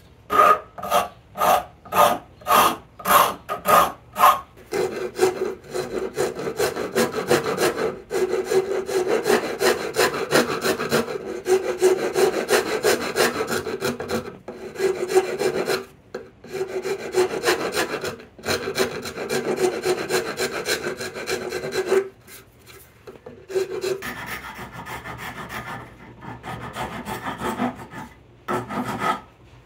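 A rasp and then a fine file working a wooden hand-plane tote. It starts with separate rasp strokes about two a second for roughly four seconds, then changes to quick continuous rubbing for most of the rest, which turns softer for the last few seconds.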